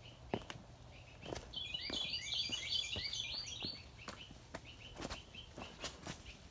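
Songbirds singing. About a second and a half in, one bird gives a fast run of repeated high chirps lasting about two seconds, with single chirps before and after. Scattered sharp clicks and taps run through it.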